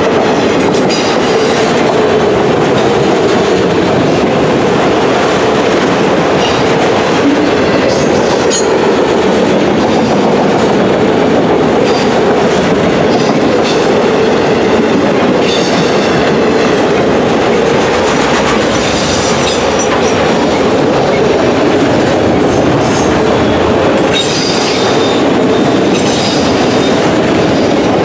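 Long freight train of autorack cars rolling past: a steady rumble with wheels clattering over the rail joints, and brief high wheel squeals twice in the later part.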